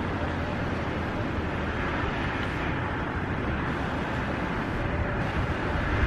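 Steady city ambience: an even hum and hiss of traffic, with no distinct events.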